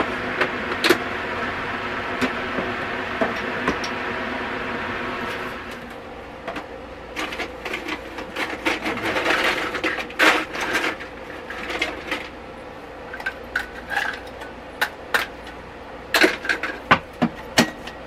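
A steady hum that cuts off about five and a half seconds in, then ice cubes clinking and clattering as they are scooped from a countertop ice maker and dropped into an insulated tumbler, in irregular bursts of sharp clicks.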